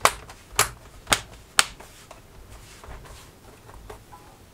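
Four sharp clicks, about half a second apart, in the first two seconds, then quieter small knocks and rustling as hands handle an LCD monitor and its cables on a workbench.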